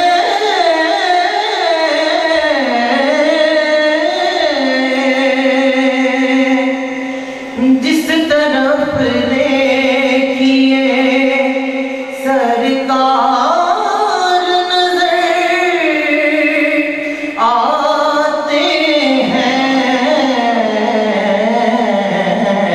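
A young man singing solo into a microphone in long, held, ornamented melodic phrases, with brief breaks for breath a few times.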